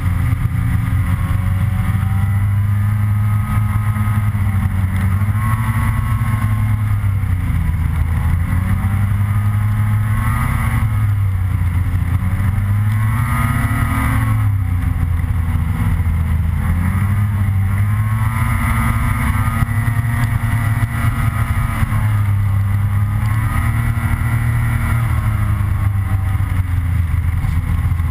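Snowmobile engine running at speed along a snowy trail, its pitch rising and falling every few seconds as the throttle is opened and eased off.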